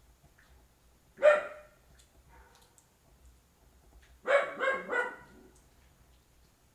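A dog barking, answering another dog far off: one loud bark about a second in, then a quick run of three barks a few seconds later.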